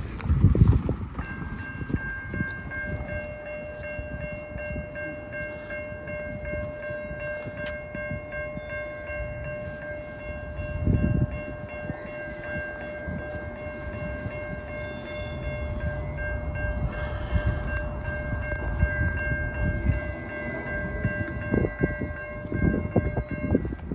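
A freight locomotive's air horn held in one long steady blast of several tones at once, lasting about twenty seconds and cutting off near the end, over the low rumble of the passing train.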